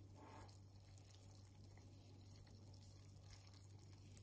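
Near silence: a low steady hum, with faint wet squishing from a hand working water into flour in a glass bowl.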